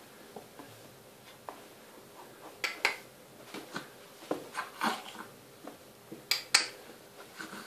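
A baby flailing on a padded plastic changing mat: soft rubs and knocks, with two quick pairs of sharper clacks.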